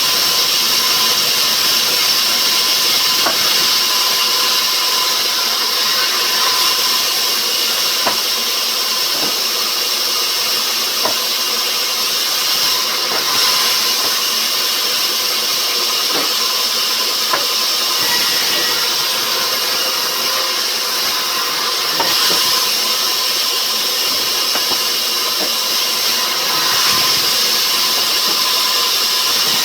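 Sawmill machinery running steadily on rubber wood: a loud, even hiss with a faint steady hum underneath and occasional light knocks.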